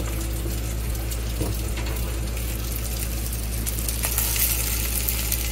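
Liquid plant-based egg frying in a pan, a steady sizzle over a constant low hum, getting a little louder and brighter about four seconds in.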